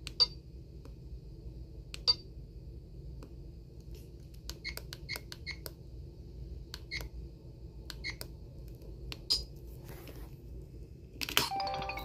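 Samsung SPH-A860 flip phone keypad beeps as its buttons are pressed to move through the menus: two spaced beeps, then a quick run of about a dozen. Near the end comes a plastic clack as the flip is shut, followed by a short falling run of tones.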